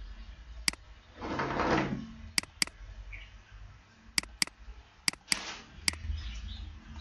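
Computer mouse clicks: eight sharp clicks, mostly in quick pairs of double-clicks. A short, louder rush of noise comes about a second in.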